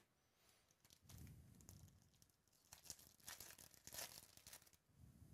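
Faint crinkling and tearing of a Topps foil trading-card pack wrapper being ripped open by hand: a run of sharp crackles starting about a second in, loudest near the middle, stopping shortly before the end.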